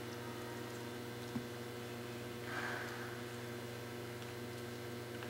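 Steady electrical mains hum with a faint hiss underneath. A single sharp click about a second and a half in, and a brief soft rushing noise a little before the middle.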